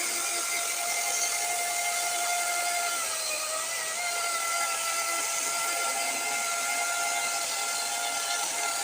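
DeWalt 60V 18-inch cordless chainsaw (DCCS672) running at full speed through a softwood log: a steady electric-motor whine over the rush of the chain. Its pitch dips slightly about three seconds in as the chain loads up in the cut, then recovers.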